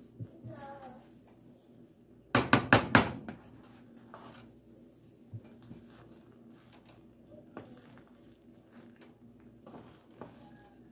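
Wooden spoon stirring rice in a large nonstick frying pan, with four quick sharp knocks of the spoon against the pan about two seconds in, and a few fainter knocks later. A steady low hum runs underneath.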